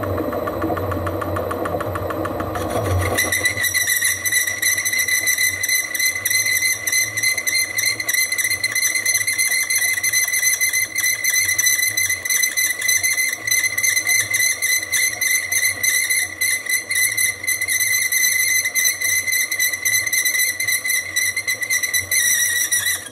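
Holbrook C8 lathe cutting with a high-speed steel tool: the lathe runs for a few seconds, then the cut sets up a steady, high-pitched chatter squeal, bloody noisy, that stops suddenly near the end.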